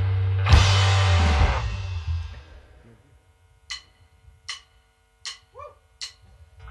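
A rock band with drum kit, bass and electric guitar ends a passage on a loud cymbal-and-chord hit about half a second in and lets it ring out over about two seconds. After a near-silent gap, four evenly spaced drumstick clicks count in the next song, and the band starts playing again at the very end.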